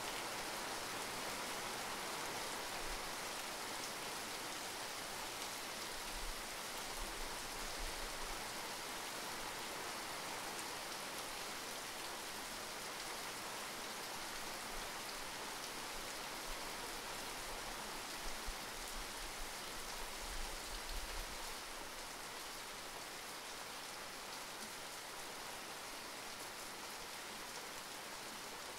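Steady rainfall: a constant, even hiss of many raindrops falling.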